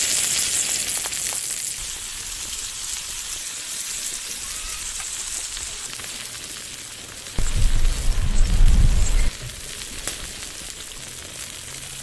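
Halved lobster sizzling on a hot stone slab over a wood fire: a steady high hiss, loudest at the start and easing off gradually. A low rumble breaks in for about two seconds a little past the middle.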